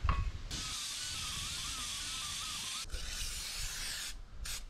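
Aerosol can of Fluid Film spraying through its extension straw onto a brake hub: a long steady hiss with a faint wavering whistle, a brief break near three seconds, then more spraying and a short burst near the end.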